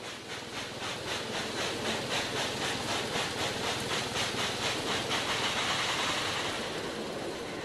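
Steam locomotive chuffing, about four exhaust beats a second, then giving way to a steady hiss of steam about five seconds in.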